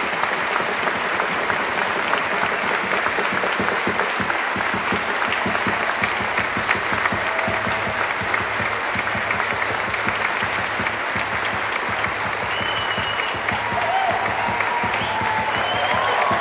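Concert-hall audience applauding, a dense steady clapping, with a few short calls rising over it near the end.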